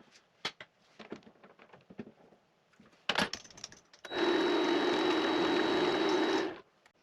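Scattered clicks and knocks of metal parts being handled and set in the chuck. About four seconds in, the Vevor MX400 mini lathe runs for about two and a half seconds, a steady hum with a thin high whine, then stops abruptly, as a brass hex piece is chamfered.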